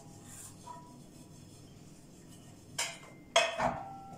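Metal kitchenware clinking: a light knock a little under three seconds in, then a sharper clank that rings briefly.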